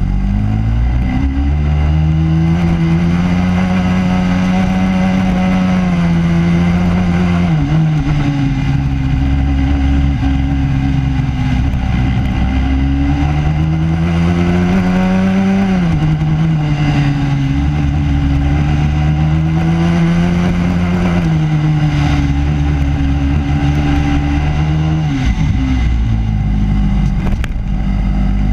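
Racing kart's four-stroke engine heard onboard at racing speed, its pitch climbing and holding on the straights, then dropping sharply as it slows for corners, about four times over.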